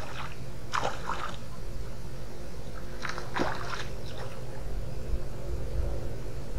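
Short splashing and rustling as a small fish is yanked out of the river on a fishing pole, loudest about three seconds in, over a steady low rumble.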